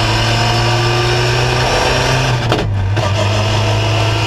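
Ginetta G40 race car's Ford 1.6-litre four-cylinder engine pulling hard, heard inside the cockpit. The engine note rises slowly, with a short break about two and a half seconds in, after which it comes back lower and climbs again.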